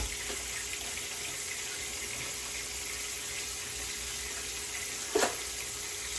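Hot oil sizzling steadily as chicken legs deep-fry, with one short knock about five seconds in.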